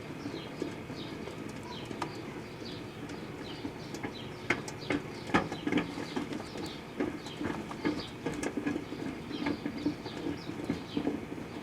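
Proctor-Silex microwave oven running with sugarcane inside: a steady hum with a pulsing rhythm, scattered sharp clicks that bunch up about halfway through, and many short, high falling chirps.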